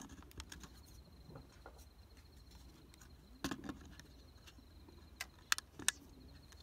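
Scattered sharp clicks and taps of fishing gear being handled while packing up, the loudest two near the end, over a faint steady high trill of night insects.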